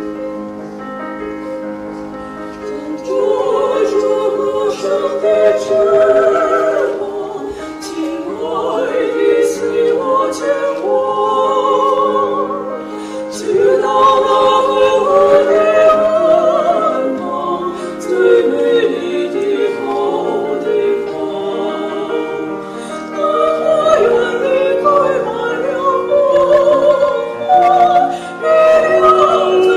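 Female vocal trio singing a classical song in harmony, with sustained accompaniment underneath; the voices come in fuller and louder about three seconds in.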